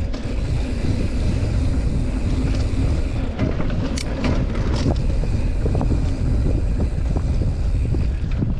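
Wind buffeting the microphone and mountain bike tyres rumbling over a dirt trail on a downhill run, with a few sharp clicks and rattles from the bike a few seconds in.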